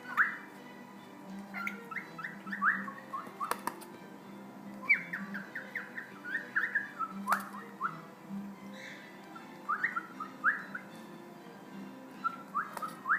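Cockatiel whistling in runs of short, quick notes, each sliding sharply in pitch, with pauses between the runs. Two sharp clicks come about a third and halfway in.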